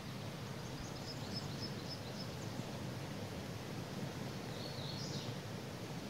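Steady rushing hiss of a forest creek's flowing water, with a bird giving a quick run of high chirps about a second in and another short high call near the end.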